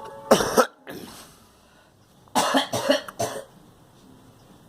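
A girl coughing: one hard cough about a third of a second in, then a quick run of three coughs a couple of seconds later.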